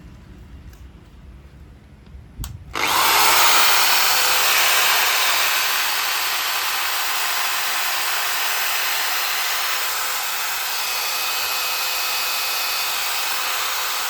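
DCA 13 mm corded electric drill, 500 W, switched on with a click about two and a half seconds in, then running steadily at full speed with a constant motor whine.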